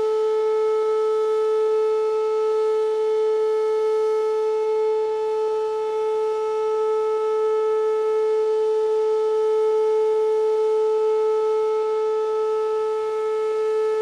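Electronic outdoor warning siren, a pole-mounted column of stacked horns, sounding the steady Alert signal as a test: one unbroken, unwavering tone with overtones, its loudness swelling and dipping slightly.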